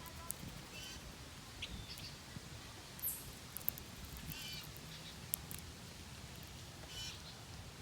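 Wild birds giving short, harsh calls every second or so, with a few sharp clicks in between.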